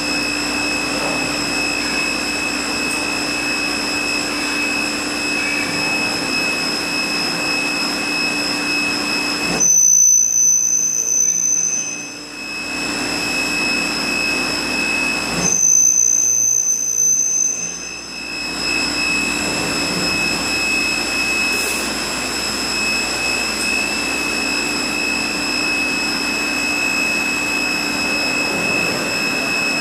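An automated beam drilling and sawing line with a robot unloader running its cycle: a steady mechanical whine with a low hum and several high constant tones. Twice, about ten and sixteen seconds in, the sound changes for two or three seconds, briefly louder, with the hum dropping away and a single high tone standing out.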